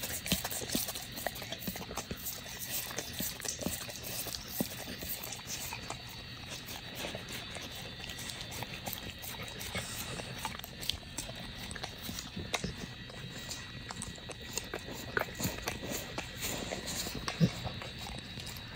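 A pit bull licking and chewing ice cream from a wooden stick and off a cloth sheet: an irregular run of wet tongue laps, lip smacks and jaw clicks.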